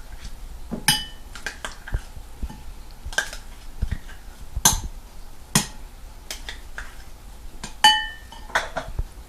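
Spoon clinking and knocking against a bowl while mayonnaise is spooned into it: scattered irregular knocks, with two clearer ringing clinks, one about a second in and one near the end.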